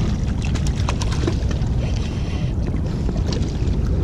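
Wind buffeting the microphone in a steady low rumble, with a few faint clicks in the first second or so.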